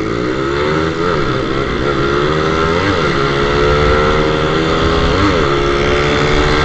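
Motorcycle engine running under way, its pitch climbing over the first second and then holding steady, with short rises and falls in pitch about one, three and five seconds in.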